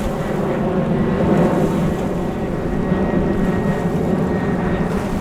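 Wind buffeting the microphone as a steady low rumble, with a faint thin steady tone above it.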